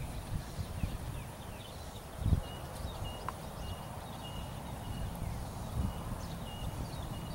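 Dull, low hoofbeats of a Haflinger mare trotting on grass under a rider, with one louder thump a little over two seconds in.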